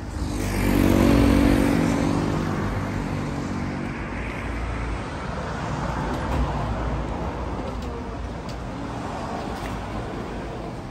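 A motor vehicle passes close by, its engine loudest about a second in, then fades into steady road traffic noise.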